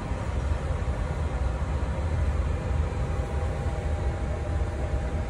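Steady low rumble and hum of a powered-up Boeing 737 MAX flight deck parked on the ground, with a faint steady whine running through it.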